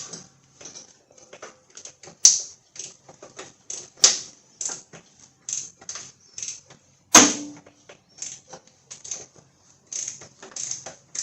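Irregular light metal clicks and taps of hand tools and small hardware being handled at a riding mower's battery terminal. Sharper knocks come about two seconds, four seconds and seven seconds in.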